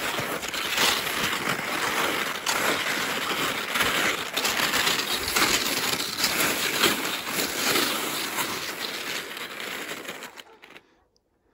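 Salomon cross-country skis scraping and crunching over icy, crusted snow, a continuous hissing crunch that rises and falls with the strides and stops shortly before the end.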